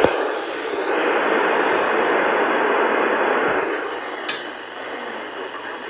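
Radio receiver static: a steady hiss with a click at the start, which drops in level about four seconds in, with a short sharp crackle just after.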